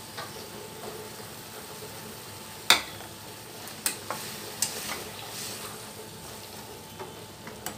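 Spatula stirring chickpeas in a watery tomato masala gravy in a metal kadai, over a steady sizzle of the simmering curry, with a few sharp clicks of the spatula against the pan in the middle.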